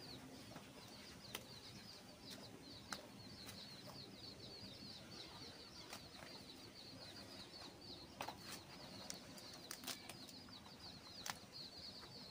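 Faint ambience of small birds chirping rapidly and continuously at a high pitch, with a few scattered sharp clicks and taps.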